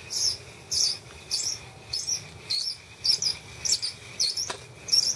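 Ice-fishing reel being cranked to bring up a hooked fish, squeaking sharply and rhythmically at about two squeaks a second; the reel is really squeaky.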